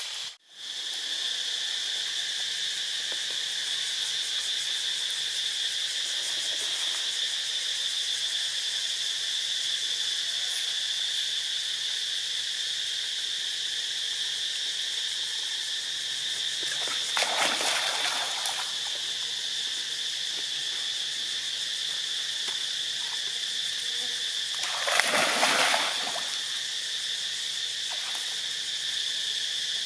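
Steady high-pitched drone of insects, broken twice, about halfway through and again near the end, by short splashes of water as macaques move in the shallows.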